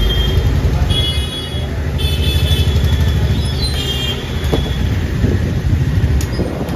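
Street traffic noise: a steady low rumble of passing vehicles with several short, high-pitched horn toots in the first few seconds.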